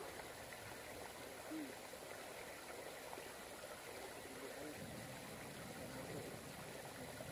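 Faint, steady rush of water, typical of tidal seawater running through a fishpond sluice gate, with faint voices in the distance.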